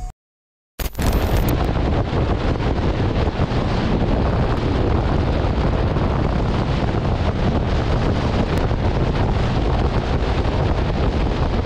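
Steady wind rush on the microphone of a moving motorcycle's camera, mixed with road noise. It starts suddenly about a second in, after a short silence.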